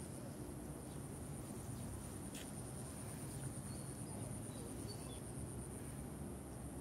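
Insects trilling steadily in a fast, even, high-pitched pulse, faint over a low outdoor rumble.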